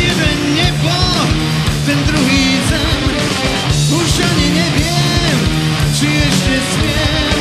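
A rock band playing live: electric guitar, bass guitar and drums.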